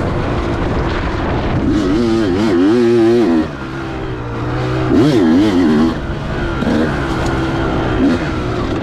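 2004 Kawasaki KX250's single-cylinder two-stroke engine revving under throttle while being ridden. Its pitch swings up and down quickly in two louder stretches, about two seconds in and about five seconds in, with a sharp drop in level as the throttle comes off in between.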